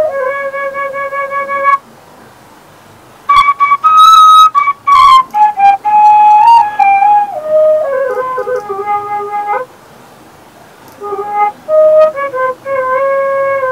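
Sundanese suling, an end-blown bamboo flute, played solo in slow melodic phrases. A held note breaks off for a pause of about a second and a half. The next phrase starts high with short clipped notes and steps down to a low held note. After another pause the melody returns near the end.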